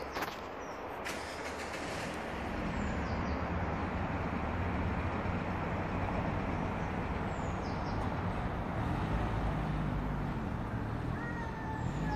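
Steady low rumble of a motor vehicle engine or traffic, with a couple of sharp knocks in the first second and a few short high chirps. About a second before the end, a cat starts a long wavering yowl.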